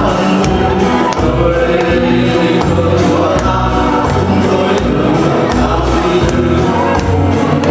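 Background music: an upbeat song with choir-like sung voices over a steady beat.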